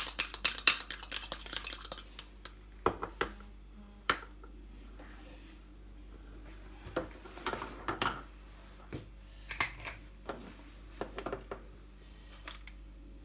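A fork beats egg in a plastic cup, making fast, rapid clicking taps that stop about two seconds in. Scattered light taps and rustles follow.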